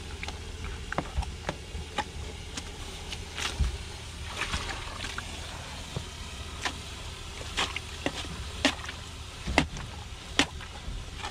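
Scattered irregular clicks and knocks of work at the exposed water main, over the steady low hum of an idling engine.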